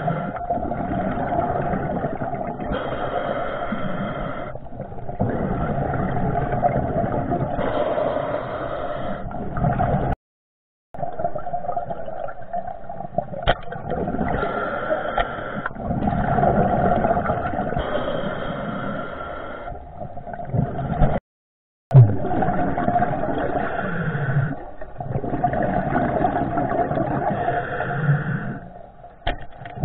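Underwater noise heard through a waterproof camera housing during a night spearfishing dive: a steady muffled rushing that swells every few seconds. The sound drops to silence twice for under a second.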